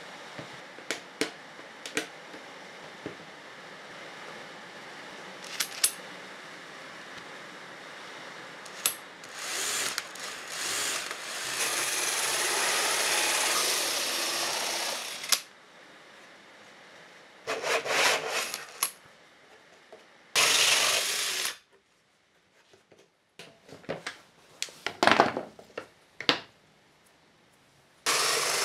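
Cordless drill spinning a hole saw through plywood in several runs, the longest lasting about five seconds, with shorter bursts after it and another starting near the end. Before the cutting come sharp clicks and knocks from spring clamps and boards being set on the bench.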